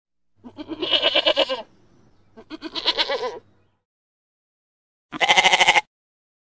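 A flock of sheep and goats bleating: three separate wavering bleats, the first two each over a second long and the third shorter, about five seconds in.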